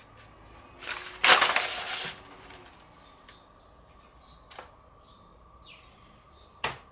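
A sheet of butcher paper rustling and crackling for about a second as it is handled and rolled up. Later comes a soft click and, near the end, a single sharp knock.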